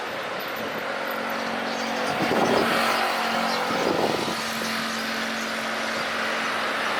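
Airbus A320 jet engines running, a steady broad roar with a faint low hum in it, swelling slightly partway through.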